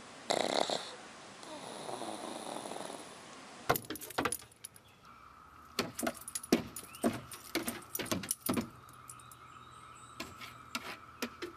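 A pug's snoring breaths: one loud breath near the start, then a longer, softer one. Then a dog's claws scratch and scrape rapidly on wooden deck boards, in irregular bursts.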